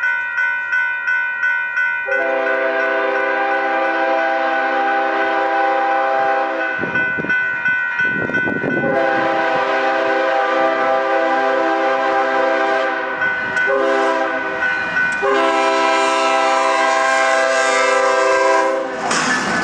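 Union Pacific freight locomotive's multi-chime air horn sounding long, long, short, long, the grade-crossing signal, over a bell dinging about three times a second. Near the end the horn stops and the lead locomotives pass with a loud rush of engine and wheel noise.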